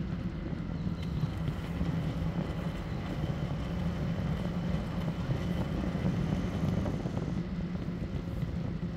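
Steady rush of wind over the microphone and road rumble from an e-bike being ridden along.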